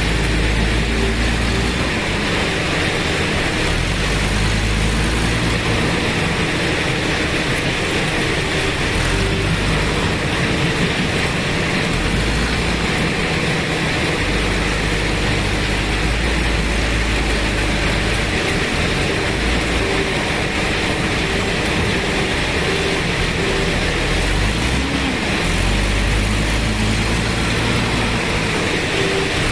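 JCB 3DX backhoe loader's Kirloskar diesel engine running continuously, its low note swelling and easing every few seconds as the machine works.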